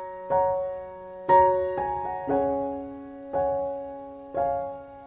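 Background music: a slow, gentle piano melody, notes struck about once a second and left to ring and fade.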